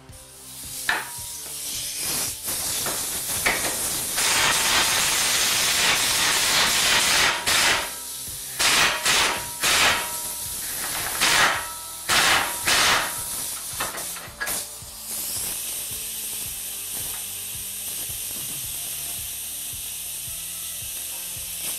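Pneumatic wrench on an air hose loosening the large engine-cradle bolts under a Smart fortwo, running in a long spell and then in a string of short bursts, with hissing air. A steady high hiss fills the last several seconds.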